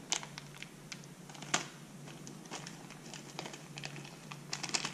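Crinkling and rustling of packaging with scattered small clicks, a cluster of them near the end, as the brake caliper's spacer shims are taken out of their bag.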